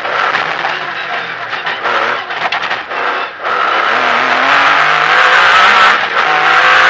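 Metro 6R4 rally car's V6 engine heard from inside the cabin. Its note drops and breaks up about two seconds in, with a brief flurry of sharp clicks, then climbs steadily under power, with a quick gear change near the end.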